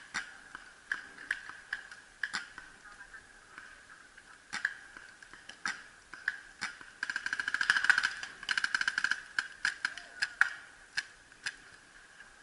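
Paintball markers firing: scattered single sharp pops, then a rapid string of shots lasting about two seconds, a little past the middle.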